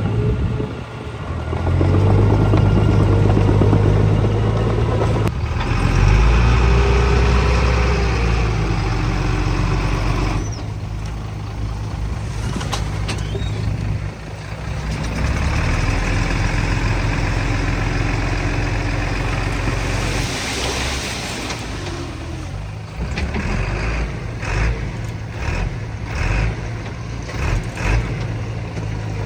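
Diesel engines of heavy earthmoving machinery, a bulldozer and small dump trucks, running and changing speed as they work. Near the end there is a run of sharp knocks and clanks.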